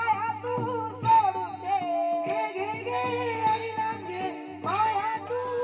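Marathi devotional bhajan music: a boy's voice sings a long, drawn-out melodic line into a microphone, with brass hand cymbals (taal) struck in a steady rhythm and instrumental accompaniment.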